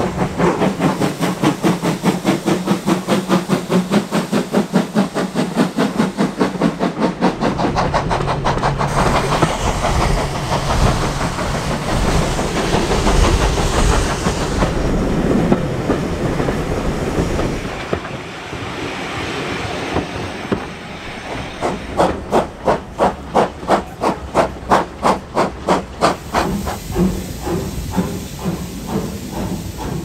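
Steam locomotive chuffing in fast, regular exhaust beats with steam hissing as it works a train. In the middle come the steady rumble and clatter of the carriages running on the track, and the rhythmic chuffs return strongly near the end.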